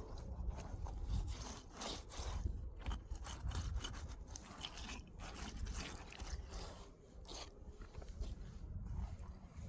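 Repeated, irregular scraping strokes, something rubbed or dragged across a rough surface.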